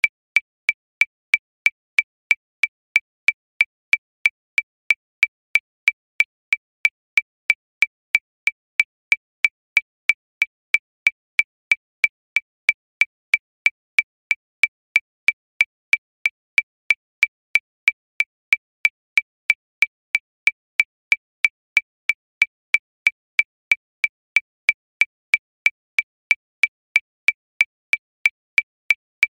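Metronome clicking steadily at 185 beats per minute, about three sharp high-pitched clicks a second, each the same pitch, with silence between.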